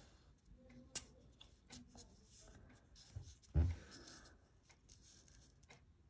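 Quiet handling of a printed paper page on a wooden desk: light pencil taps and paper rustle, with a sharp click about a second in and a dull thump about three and a half seconds in.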